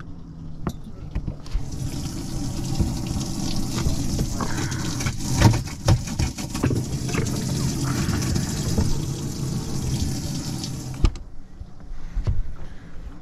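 Boat live-well pump running, water pouring into the live well with a steady splashing hiss over a low pump hum, and a few knocks in the middle. The water cuts off suddenly shortly before the end.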